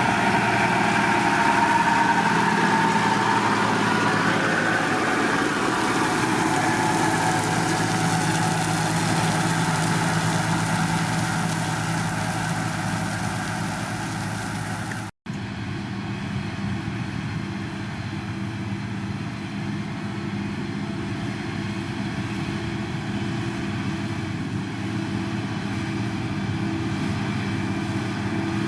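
Heavy diesel engine of a road-construction machine running steadily. About halfway through the sound cuts out for an instant, and the engine comes back duller, with much less high hiss.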